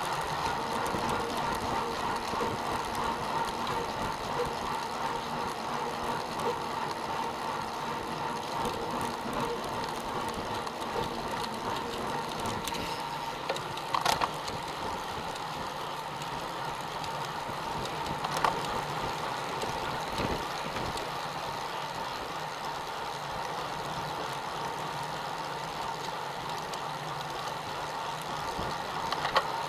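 Road bicycle ride noise picked up by a camera mounted on the bike: a steady rush of tyres and wind with mechanical rattle and ticking from the drivetrain, and a few sharp clicks, the loudest about halfway through and another a few seconds later.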